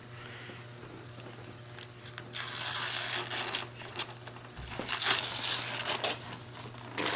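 Wrapping paper being torn and crumpled off a present: two loud spells of ripping and crinkling, each about a second long, and a shorter one near the end.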